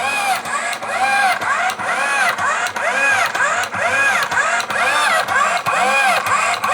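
Homemade washing machine running: its motor whines up and down in pitch about twice a second, with regular clicks as it drives the wash.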